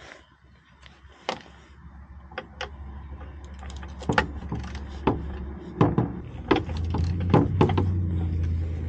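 Hand tools being sorted and handled, with sharp metallic clicks and knocks several times, over a steady low mechanical hum that grows louder in the second half.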